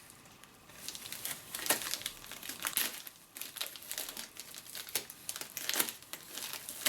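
Plastic packaging of diamond painting kits crinkling and rustling as it is handled, with several sharper crackles.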